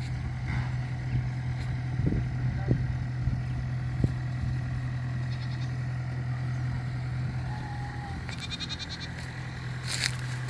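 Yanmar AW70V combine harvester running steadily with a low drone, with a few sharp knocks from the machinery a couple of seconds in.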